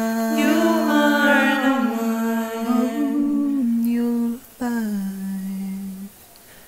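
Wordless singing of the song's melody in long held notes, with a short break about four and a half seconds in; the voice stops about six seconds in.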